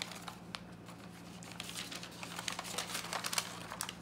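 Tissue paper crinkling and rustling as it is folded back from a box, in quick crackles that come thicker about halfway through.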